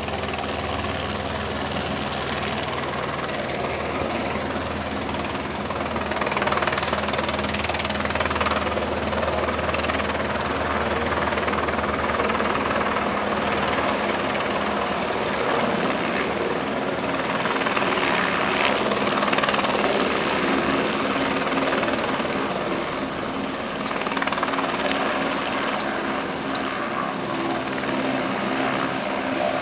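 A helicopter close by, its rotor and engine running with a loud, steady noise and a low hum that eases off about halfway through.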